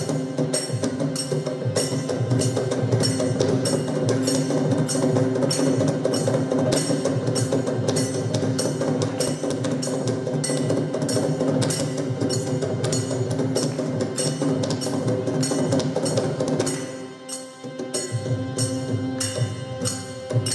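Tamil Ayyappan bhajan played live: group singing over a harmonium and mridangam, with sharp percussion strokes keeping a steady beat of about two a second. The music dips briefly about 17 seconds in, then picks up again.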